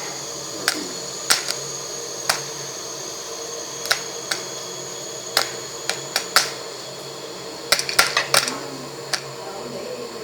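Scattered sharp clicks and knocks, about fifteen at uneven spacing with a cluster near the eight-second mark, over a steady faint high whine and hum.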